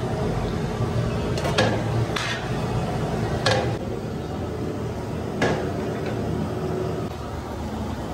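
A metal scoop knocking and scraping against a large metal cooking pot as cooked rice is scooped out: four sharp clanks a second or two apart, over a steady low hum.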